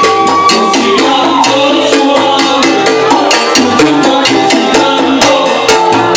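Live salsa band playing loudly, with timbales and congas keeping a steady, fast percussion rhythm. A long held note ends about a second in.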